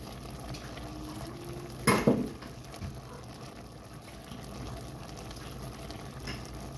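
Pan of elbow macaroni and ground meat simmering in a cheeseburger sauce, bubbling steadily. A brief sharp knock about two seconds in is the loudest sound.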